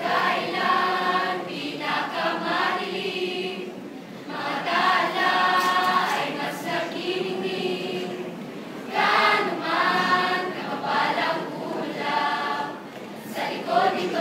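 Mixed choir of male and female voices singing together, in phrases with brief breaks between them.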